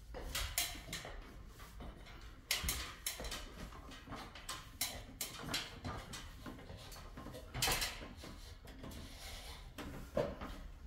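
Irregular rustles and knocks, likely footsteps on a bare wooden plank floor mixed with handling noise from a hand-held phone. The loudest bursts come about half a second in, two and a half seconds in, near eight seconds and about ten seconds in.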